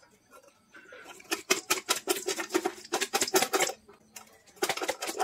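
Aluminium bowl and lid rattling and clattering fast as the covered bowl is shaken to toss the salad inside, in two spells: one about a second in lasting over two seconds, another starting near the end.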